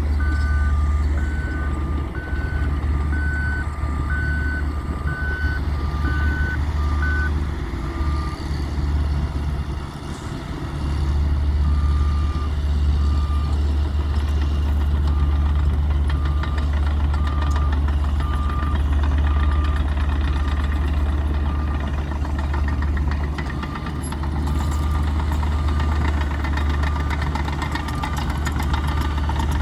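Heavy construction vehicles' engines running steadily with reversing alarms beeping: two alarms at different pitches beep together at first, the higher one stops after about seven seconds, and after a short pause one alarm keeps beeping evenly to the end.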